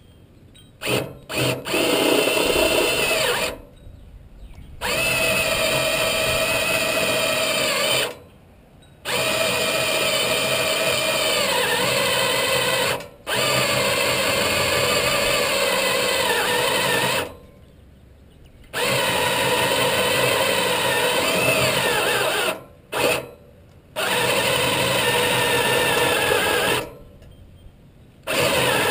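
Electric drill driving a step drill bit through the steel of a trailer frame, opening a pilot hole out to 1/2 inch. The drill runs in bursts of three to four seconds with short pauses between, after a couple of quick blips of the trigger at the start, its whine sagging in pitch at times.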